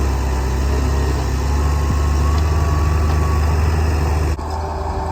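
Heavy diesel earthmoving equipment, a backhoe and a skid-steer loader, running steadily with a deep, even rumble. The sound changes abruptly near the end.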